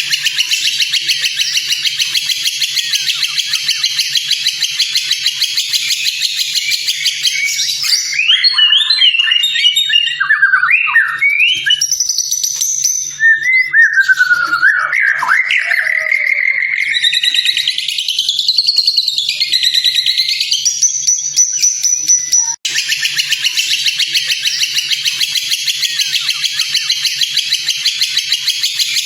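Bird-training recording of a white-rumped shama (murai batu) singing varied whistled phrases that glide up and down for about 14 seconds. Before and after the song, a dense, fast, high chattering trill plays, and it cuts in abruptly about 22 seconds in, as in a spliced loop.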